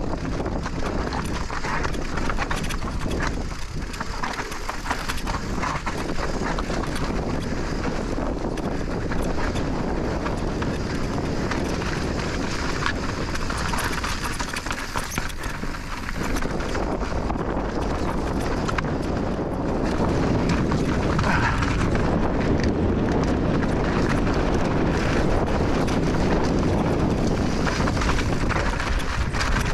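Specialized Turbo Levo electric mountain bike riding over a rocky trail: tyres crunching and the bike clattering over rock, with wind on the microphone. It gets a little louder about two-thirds of the way through.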